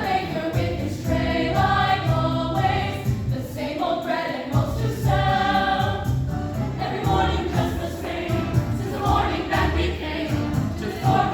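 High school choir singing a pop medley in harmony over a steady instrumental backing with a strong bass line.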